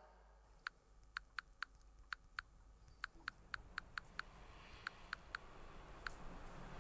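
Smartphone keyboard tap clicks: a faint, irregular run of short ticks in quick clusters as a message is typed. A faint hiss builds near the end.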